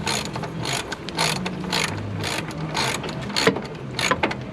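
Repeated ratcheting strokes, about two to three a second, as a fastening on the headlight is tightened down, over a low steady hum.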